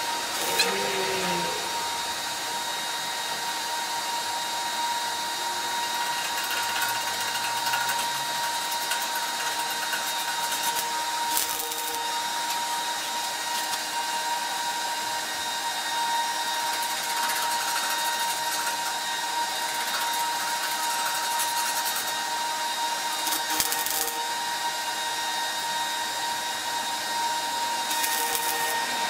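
Steady whirring machine hiss with a constant tone, broken three times by short bursts of wire-feed welding arc crackle: about twelve seconds in, about twenty-four seconds in, and near the end.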